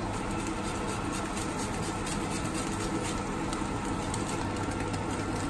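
Sliced garlic and chilli sizzling steadily in hot oil in a wok, with faint crackles and a low steady hum underneath.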